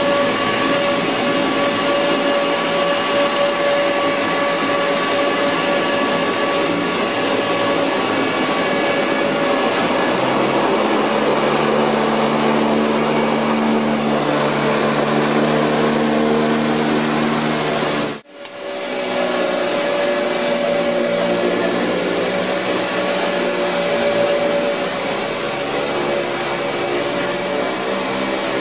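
Twin-engine turboprop floatplane's engines and propellers heard inside the cockpit: a loud, steady drone of several tones, with a lower hum joining about ten seconds in while the pilot works the overhead throttles. The sound breaks off for a moment about two-thirds through, then carries on.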